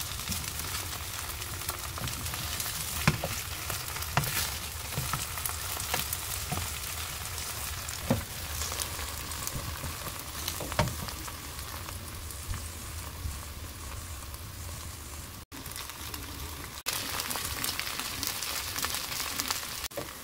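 Batter-coated napa cabbage leaves sizzling in oil in a nonstick frying pan, with a few sharp clicks as a wooden spatula presses and turns them. The sizzle drops out briefly past the middle.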